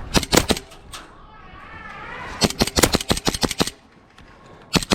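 Airsoft guns firing: a few shots, then a rapid string of about ten shots, then more shots near the end, with a faint shouting voice in between.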